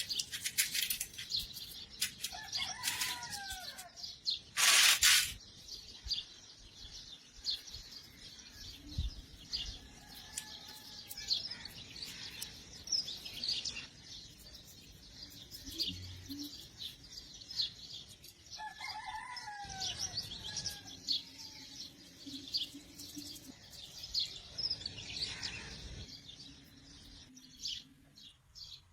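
Small birds chirping and calling continuously, with a few longer sweeping calls among the quick high chirps. About five seconds in there is a short, loud hiss lasting about a second.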